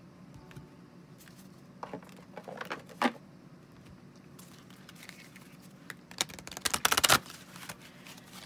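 A deck of oracle cards being shuffled by hand: scattered taps and slides about two to three seconds in, then a rapid flurry of card flicks about six to seven seconds in, the loudest part.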